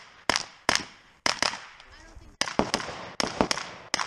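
Rifle fire during a timed match stage: a rapid string of sharp gunshots, several in quick pairs, each with a short echo.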